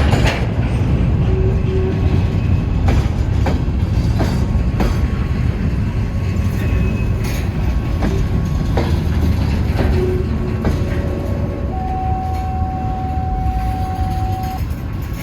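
Freight cars rolling past, their wheels clicking over the rail joints over a heavy rumble, with brief wheel squeals and one steady squeal held for about three seconds near the end.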